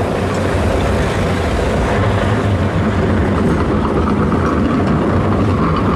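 Steady, loud traffic noise of a tram and a police van passing.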